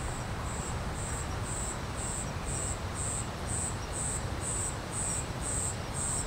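An insect chirping in the forest: short, high-pitched chirps repeating evenly, about two a second, over a steady low rushing background.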